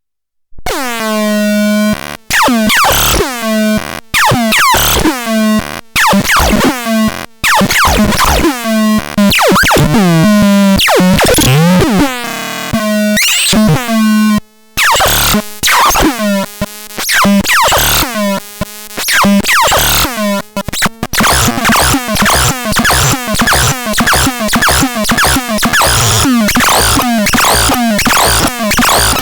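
Brainwasher Ultra 260 electronic sound generator making harsh synthesizer noises: falling laser-like pitch sweeps over a steady low drone, repeating about every two seconds. From about two-thirds of the way in it changes to fast stuttering pulses.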